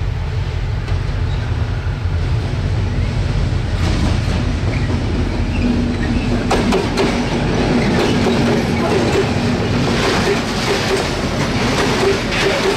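Series 664 EMD G26 diesel-electric locomotive running past with a freight train: a low engine rumble first, then, from about halfway, the wagons rolling by with rapid wheel clatter and clicks over the rail joints.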